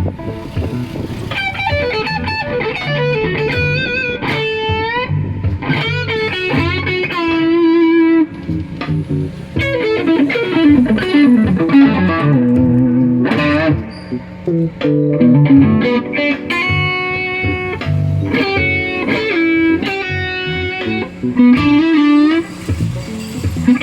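Elegee Alab series Telecaster-style electric guitar played solo: single-note lead lines with several string bends, mixed with sustained chords.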